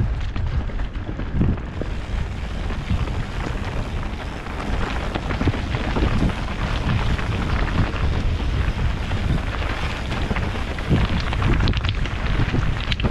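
Mountain-bike descent heard from a rider-mounted action camera: wind buffeting the microphone over the rumble of knobbly tyres on dirt and loose rock, with frequent small knocks and rattles from the bike over bumps.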